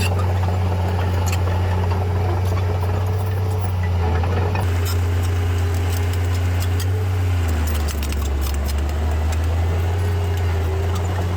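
D31P bulldozer's diesel engine running with a steady low drone, with light metallic clinks and rattles in the middle; about seven and a half seconds in, the engine note drops lower.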